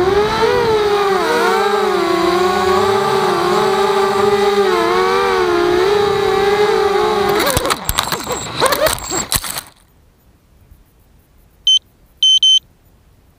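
Walkera Rodeo FPV quadcopter's motors and propellers whining, the pitch rising and falling with throttle, then a clatter of knocks as it crashes into a tree about seven and a half seconds in. The motors stop about two seconds later, followed by two short high electronic beeps.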